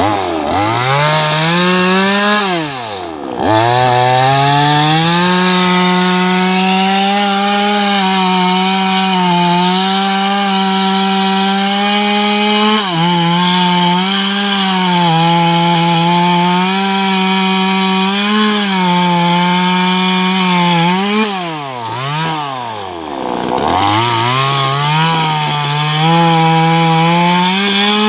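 Top-handle chainsaw at full throttle cutting into teak tree roots, its engine note wavering under the load. Twice the revs drop away and climb back: about three seconds in, and again around twenty-two seconds.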